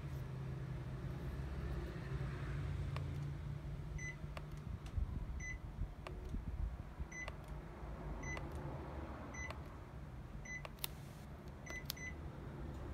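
Panasonic Envio split air conditioner's indoor unit giving short single beeps as it takes commands from the remote: about eight beeps, a second or so apart, the last two close together near the end. They sound over a low steady hum, with a few faint clicks between.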